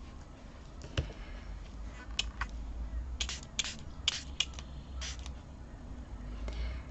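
Short sharp clicks and light scratches, about ten in all, from craft tools and paper flowers being handled and set down on a work table, most of them bunched in the middle of the stretch.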